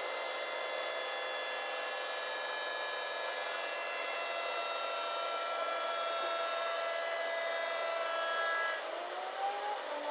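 Diamond-cut wheel lathe spinning an aluminium alloy wheel while its cutting tool skims the face to cut away curb rash: a steady whine of several tones over a rushing hiss. About nine seconds in it drops quieter and a short rising tone is heard.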